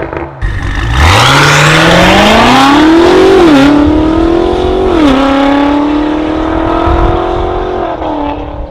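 BMW X6 M (F96) twin-turbo V8 through a valved Fi Exhaust catback and downpipes, accelerating hard from low revs with the engine note climbing steadily. Two quick upshifts follow, about three and a half and five seconds in, then the revs hold nearly steady and ease off near the end.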